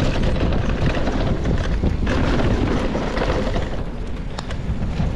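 Wind rushing over the camera microphone and mountain-bike tyres rolling over a dirt trail, with many quick ticks and knocks from the bike rattling over stones.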